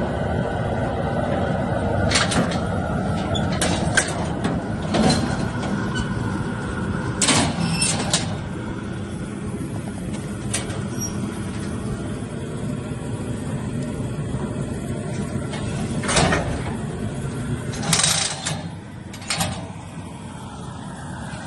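Metal clanks and bangs of a cattle chute's head catch and steel gates as calves are worked through, about eight sharp hits spread through the stretch, over a steady low rumble.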